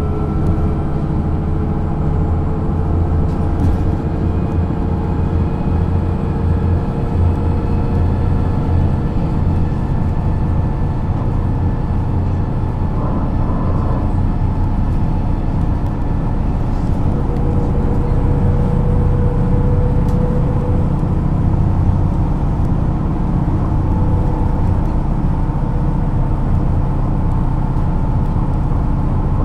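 MAN NG 313 articulated city bus under way: its diesel engine and ZF gearbox make a steady drone, with a whine that slowly glides up and down in pitch.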